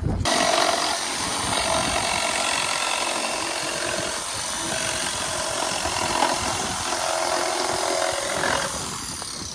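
Power saw running steadily as it cuts through a piece of scrap wood, a constant whirring cut that starts abruptly and holds at an even level.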